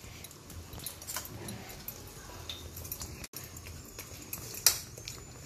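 Steel spoon mashing soft cooked pumpkin on a metal plate: faint squishing and scraping with light clinks of spoon on plate, one sharper clink near the end.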